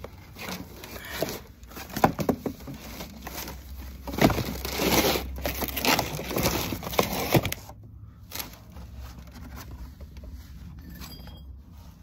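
Cardboard box and packing material rustling and scraping as parts are rummaged out by hand, with several sharp knocks in the first half. It quietens down about two thirds of the way through.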